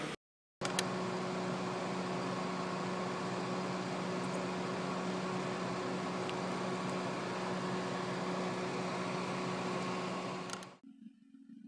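A steady low hum under a hiss, like a fan or other running machine. It drops out briefly just after the start, comes back with a click, and near the end gives way to much quieter room tone.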